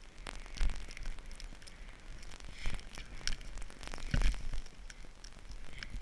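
Irregular crackling and rustling with scattered short knocks, the sound of a body-worn camera moving with a splitboarder riding through powder snow.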